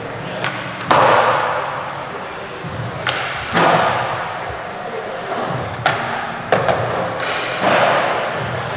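Skateboard wheels rolling on smooth concrete with a steady rushing sound. Several sharp clacks of the board's tail and wood striking the floor are spread through it, each followed by a louder rush of rolling.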